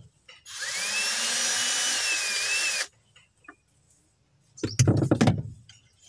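Cordless drill running for about two seconds, its motor whine rising as it spins up and then holding steady, driving a screw into the car's interior panel. Near the end comes a brief clattering knock.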